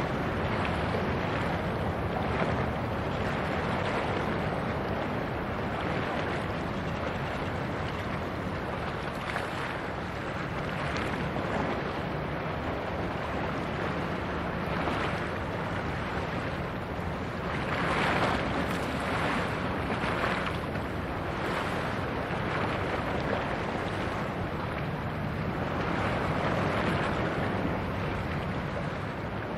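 Wind buffeting the microphone over choppy sea water washing, a steady rushing noise that swells in gusts now and then.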